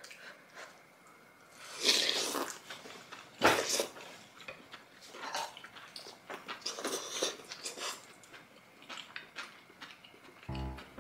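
Close-up eating sounds: several short slurps of spicy beef-and-radish soup from a spoon, with chewing in between. Music with a clear pitch comes in near the end.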